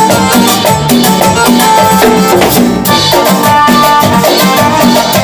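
Instrumental break of a salsa-style song: a Latin percussion section of drums and maracas under pitched instruments, with no singing.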